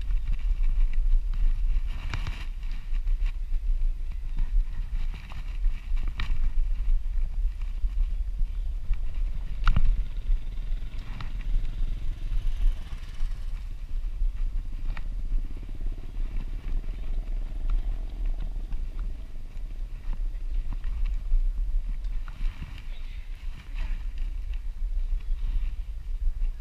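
A 1970s BSA Javelin road bicycle riding over paving slabs: a steady low rumble from the tyres and air rushing past, with a few sharp knocks from the bike as it goes over bumps.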